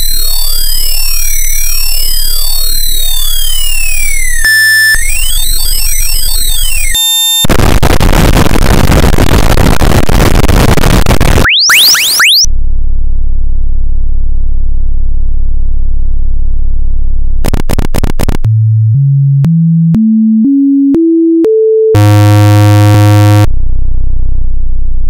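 A run of synthesized electronic sounds: many rising and falling sine-tone sweeps criss-crossing, then a few seconds of loud hiss, a quick upward whoosh, a steady low hum, a series of short tones stepping upward in pitch, and a loud buzzy tone near the end.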